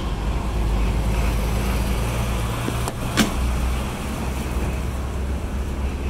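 Steady low rumble of a running motor-vehicle engine, with one sharp click about three seconds in.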